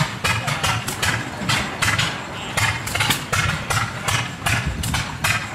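Several antique stationary flywheel gas engines running together, their exhaust pops overlapping in an uneven rhythm of about four a second over a low chugging.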